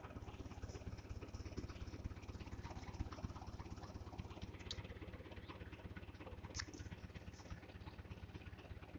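Small old tractor's engine running steadily with a rapid, even low pulse, and a couple of light clicks about halfway through.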